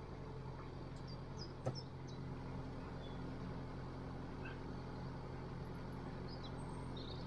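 Narrowboat's diesel engine running steadily under way, a low even hum. Faint bird chirps sound over it, with a single brief click just under two seconds in.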